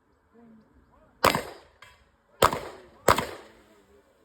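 Three gunshots fired on a shooting range, the first about a second in and the last two in quick succession about half a second apart, each trailing off briefly.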